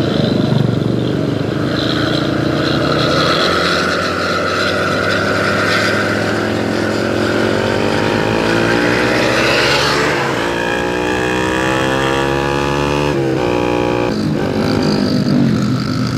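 Motorcycle and diesel bus engines heard from a motorcycle riding close behind an intercity bus, with the wind and road noise of riding. Past the middle an engine rises steadily in pitch as it accelerates for several seconds, and the sound changes abruptly near the end.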